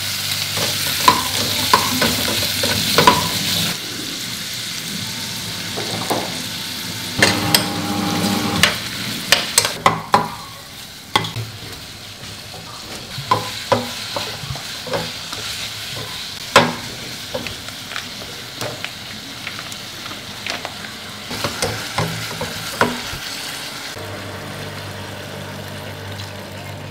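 Pork belly, onion and kimchi sizzling in a nonstick pot while a plastic slotted spatula stirs them, the base for kimchi soup being fried. The frying hiss is loudest in the first few seconds; after that, sharp clicks and scrapes of the spatula against the pot stand out over a quieter sizzle.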